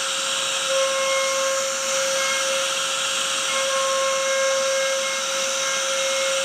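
CNC router spindle running steadily while cutting wood, a constant whine over a dense hiss.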